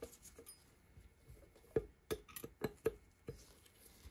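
A quick run of small, sharp clicks and taps, seven or eight in about a second and a half, starting about two seconds in. They come from fingers, screws and tool meeting the metal FEP frame of a resin-printer vat while its screws are snugged finger-tight.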